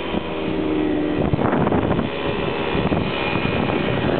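Motorcycle engine running as the bike rides along a dirt forest trail, its steady note changing about a second in.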